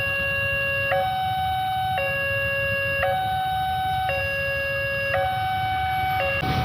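Railway level-crossing warning siren, very loud, sounding a two-tone wail that switches between a lower and a higher tone about once a second.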